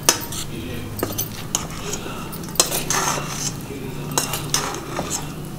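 A metal spoon stirring oil- and spice-coated pieces of boiled amla (Indian gooseberry) in a stainless steel bowl: irregular clinks and scrapes of the spoon against the bowl.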